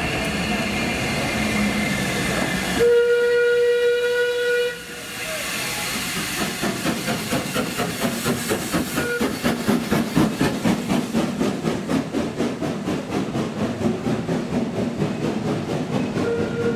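Steam tank locomotive Metropolitan Railway No. 1 gives one steady blast on its steam whistle, about two seconds long, a few seconds in. After it the locomotive and its wooden coaches run past with a regular rhythmic clatter.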